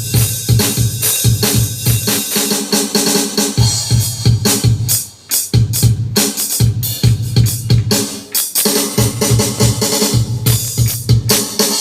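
Zoom MRT-3 MicroRhythmTrak drum machine playing a steady drum pattern of kick, snare and cymbal hits over a low pitched part, with a short break about five seconds in.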